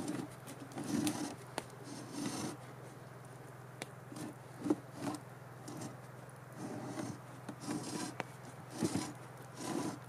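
Short, irregular scrapes and rubs of wood being handled, with a few sharp knocks, over a faint steady hum.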